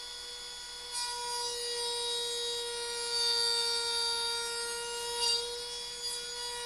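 Trim router fitted with a 1/4-inch upcut spiral bit running at speed as it cuts a slot in a wooden panel: a steady high whine that grows louder and brighter about a second in.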